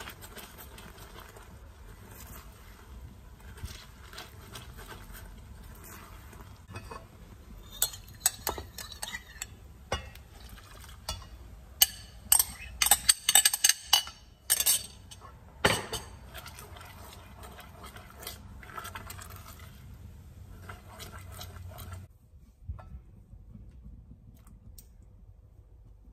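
Caramel bubbling in a stainless saucepan while a silicone spatula scrapes and taps against the pan. From about halfway, liquid cream poured into the hot caramel sets off a few seconds of loud sputtering and crackling, the loudest part. Near the end there are softer stirring clinks as butter is worked in.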